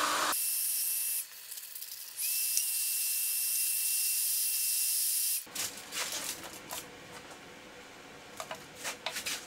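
Heat gun blowing with a steady airy hiss, cutting out about a second in and coming back with a thin high whine at about two seconds, then switched off after about five seconds. After it, aluminium foil crinkling and small clicks of tool handling.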